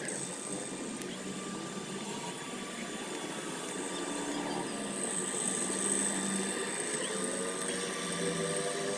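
Small electric motors of radio-controlled models whirring steadily, with faint tones that slide up and down in pitch as the models are driven.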